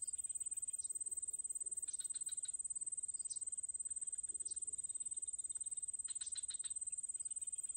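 Outdoor ambience: a steady high-pitched trill, with short bursts of rapid clicking chirps about two seconds in and again around six seconds.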